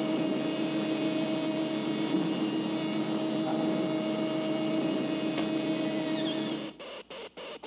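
Cartoon sound effect of a robot's spinning head rotor: a steady mechanical whir with a held hum. Near the end it cuts out and breaks into short choppy dropouts.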